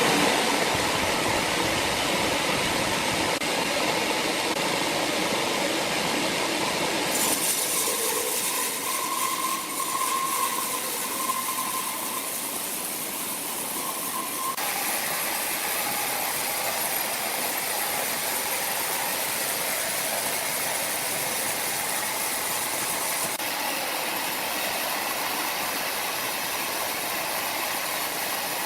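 Large sawmill saw running: a steady, noisy mechanical din that changes tone abruptly a few times, with a faint steady whine partway through.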